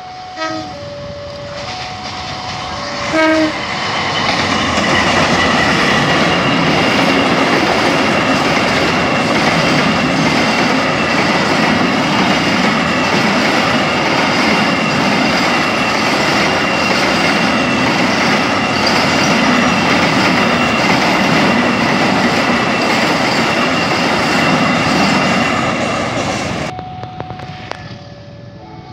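A level-crossing warning alarm sounds its alternating two-tone signal, and a diesel-electric locomotive's horn blows two short blasts. A container freight train then rolls past close by for about twenty seconds: loud steady wheel-on-rail and wagon noise with a steady high-pitched ring over it. The train noise cuts off suddenly near the end and the two-tone crossing alarm is heard again.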